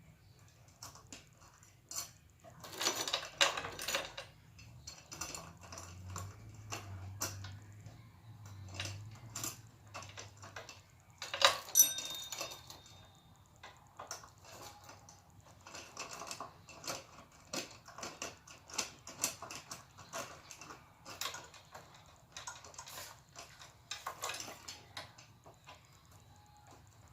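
Steel roller chain and small metal parts clinking and rattling as a mini bike chain is handled while an extra link is fitted, with irregular light clicks throughout. A sharper metallic clink with a brief ring comes about twelve seconds in.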